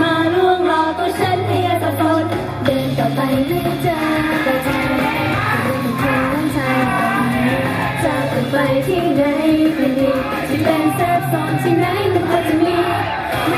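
Fast idol-pop song with its backing track played at double speed and high female voices singing over it.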